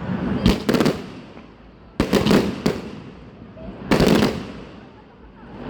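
Aerial fireworks bursting in a display: three rounds of sharp cracks and booms about two seconds apart, each trailing off in a rumbling echo.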